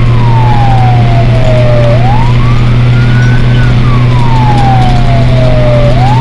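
Fire engine siren wailing, a single tone sliding slowly up and then down about every four seconds, heard from inside a moving fire truck's cab over a steady low engine drone.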